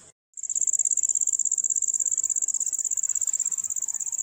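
Insects trilling: one loud, steady, high-pitched trill with a fast, even pulse. It starts just after a brief break to silence at the very beginning.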